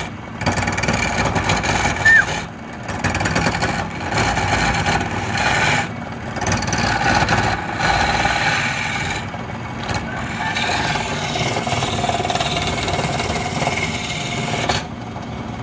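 Wood lathe running while a hand-held turning tool cuts into a spinning wooden cylinder: a rough scraping hiss of shavings being cut, breaking off briefly every second or two as the tool is eased off. The cutting stops near the end, leaving the lathe's motor running.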